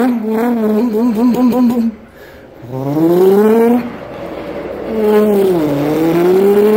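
A man imitating a race-car engine with his voice: humming revs that climb in pitch three times, with a warbling stretch in the first two seconds.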